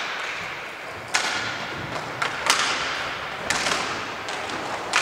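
Sharp knocks of inline hockey sticks and puck striking the rink floor and boards, several in turn about a second apart, each echoing in a large hall.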